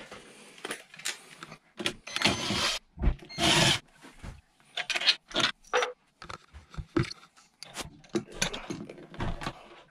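Clicks, knocks and scrapes of pliers and plastic parts being worked inside a Grohe Rapido Smartbox shower-valve rough-in box, with two short noisy rushes about two and three and a half seconds in.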